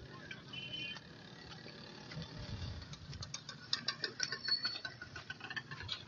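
Faint outdoor background with a run of small irregular clicks, rustles and soft thumps in the second half, the noise of a phone being handled and moved while its holder walks.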